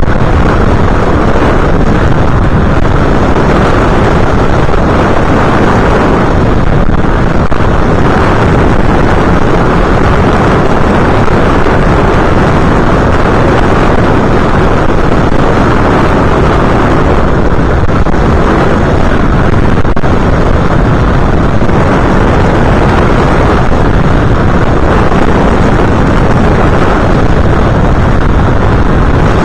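Steady wind and airflow buffeting the onboard camera's microphone of an FPV aircraft in flight: a loud, dense rumble with no distinct motor tone.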